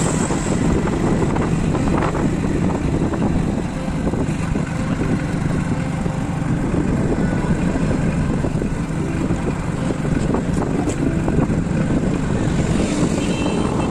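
Steady highway traffic noise, with vehicles passing and wind on the microphone.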